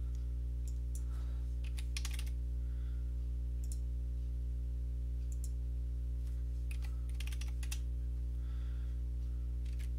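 Computer mouse and keyboard clicks, scattered singly and in a few quick runs, over a steady low hum.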